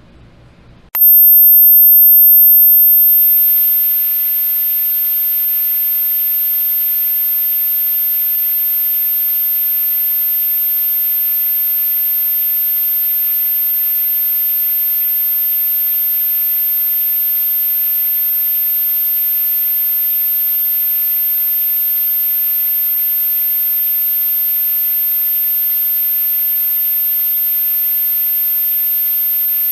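Old analog TV static: a loud hiss cuts in suddenly about a second in, eases down over the next few seconds and then holds steady, with a thin, very high steady whine above it. A faint low buzz comes just before it.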